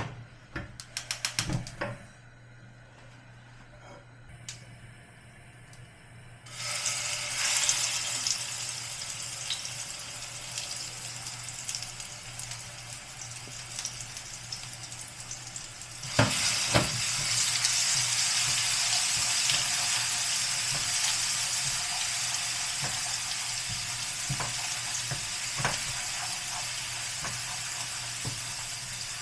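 Ground spice paste sizzling as it is sautéed in hot oil in a pan: a steady hiss that sets in suddenly about six seconds in and grows louder with a knock about sixteen seconds in, with small knocks here and there. A quick run of clicks in the first two seconds.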